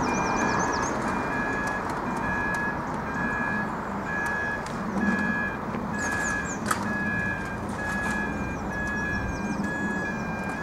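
Level crossing audible warning alarm, a repeating electronic beep about two times a second, sounding while the red warning lights flash. Birds chirp briefly over it, over steady background noise.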